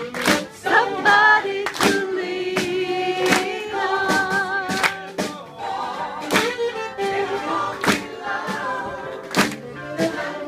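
Voices singing a song with a slow steady beat of sharp claps or knocks, about one every three-quarters of a second.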